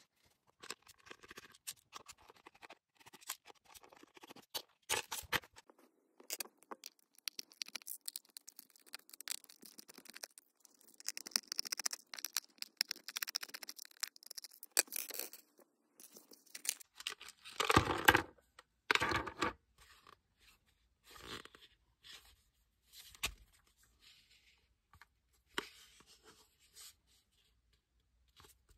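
Large molded plastic Lego Galidor pieces being handled and taken apart: scattered clicks, light knocks and scraping of hard plastic, with a denser run of scraping in the middle and two louder scrapes a little past halfway.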